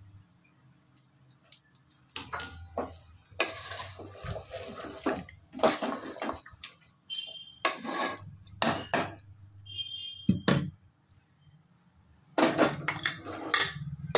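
A wooden spoon stirring and scraping a mixture of cut cluster beans and fenugreek leaves in masala around an aluminium pressure cooker. It comes in several bursts of scraping and knocking, starting about two seconds in.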